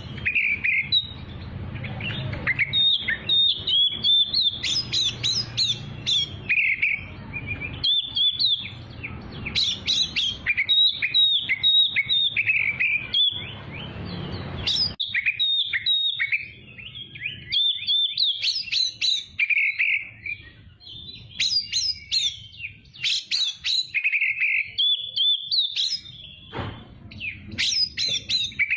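Oriental magpie-robin in full, vigorous song: a long run of rapid, varied whistles, trills and chirps with almost no pause. A low hum sits underneath for the first half.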